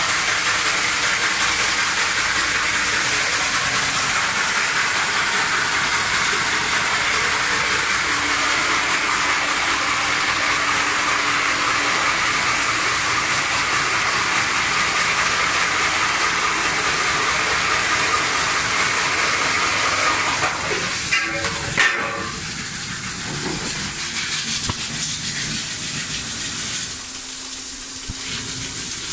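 Core drill running and cutting through a panel roof: a steady, loud hissing grind with a faint motor hum underneath. About twenty seconds in, a few sharp knocks and rattles, then a quieter, uneven grinding.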